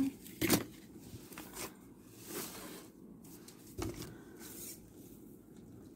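Photocards in plastic sleeves and a cardboard backing sheet being handled and laid down on a desk: a sharp tap about half a second in, a soft rustle around two seconds, and a duller knock near four seconds.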